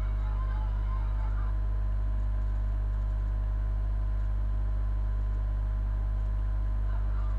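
A steady low hum with several constant tones above it. Faint, indistinct voices show in the first second or so.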